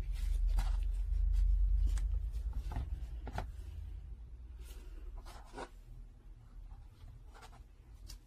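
Gloved hands handling an eyeglass frame and its detachable temple arm: a series of short scrapes and light clicks, spaced irregularly. A low rumble runs underneath and fades by about halfway through.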